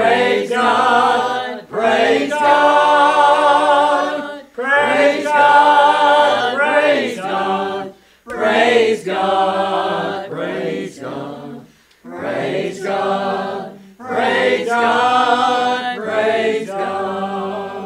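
Mixed church choir of men and women singing unaccompanied, in sustained phrases with brief pauses between them.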